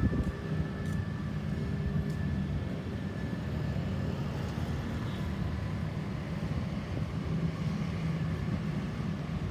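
Road traffic: vehicle engines and tyres running steadily, with no siren sounding.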